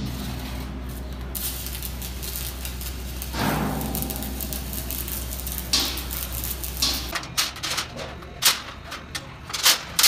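Electric arc welding on a steel frame: a steady hiss starts about a second in, over a low hum from the welding machine. Around seven seconds in the hum cuts off and a few sharp knocks follow.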